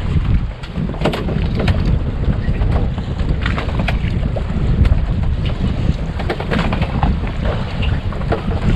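Wind buffeting the microphone on a small fishing boat at sea, a steady low rumble with scattered clicks and knocks.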